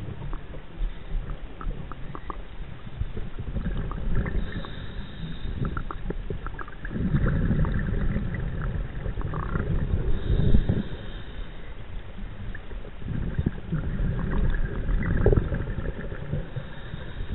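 Scuba diver's breathing underwater, heard through the camera housing: several swells of exhaled bubbles rising past it, with faint regulator hiss and scattered small clicks in between.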